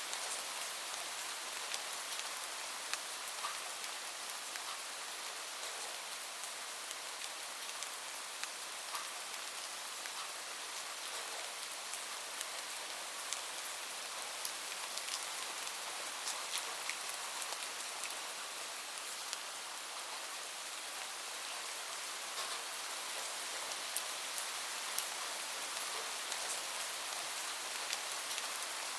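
Steady rain falling, an even hiss with many scattered drops ticking on a hard surface.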